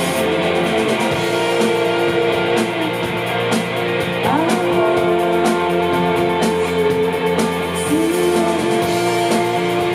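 A rock band playing live: two electric guitars hold sustained notes, sliding in pitch about four seconds in and again near the end, over bass and a drum kit keeping an even beat on the cymbals.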